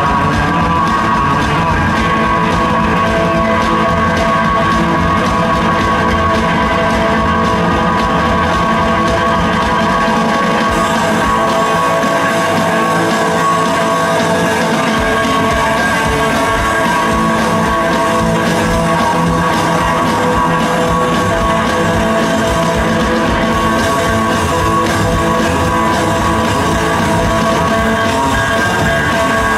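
Live rockabilly trio playing an instrumental stretch: electric hollow-body guitar, slapped upright bass and drums, loud and steady. The bass drops out for a few seconds near the middle while the guitar and drums carry on.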